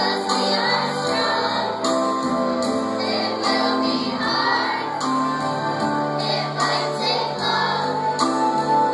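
A class of schoolchildren singing a song together, with instrumental accompaniment.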